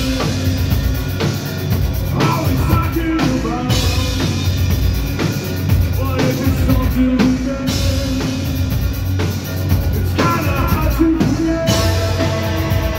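Darkwave/post-punk band playing live: electric guitar, drum kit and sung vocals, loud and continuous.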